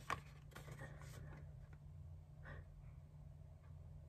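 Near silence: quiet room tone with a steady low hum. A sharp click comes just after the start, and a few faint clicks and rustles follow, typical of a small product package being handled.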